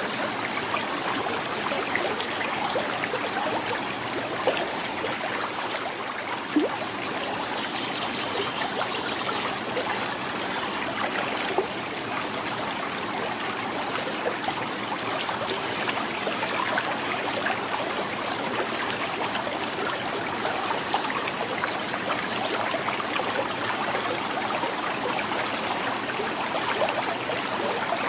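Shallow river flowing over stones, a steady gurgling and trickling with small splashes.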